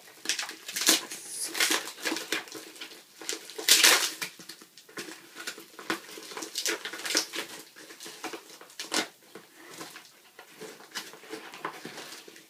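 Packaging being opened by hand: irregular crinkling, rustling and tearing of a mail package, with its loudest rip about four seconds in.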